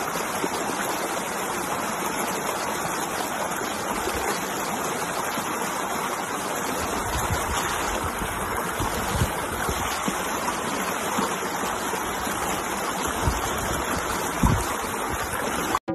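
A swollen, muddy river in flood, rushing with a steady, even roar of water. A few low thumps come near the end.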